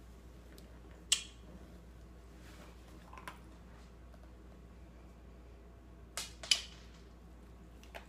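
A few sharp small clicks or taps: one about a second in, a faint one a little past three seconds, and two close together about six seconds in, over a faint steady low hum.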